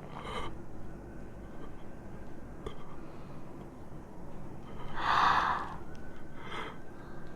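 Quiet background with a few short breaths from a person, and one louder, breathy gasp about five seconds in.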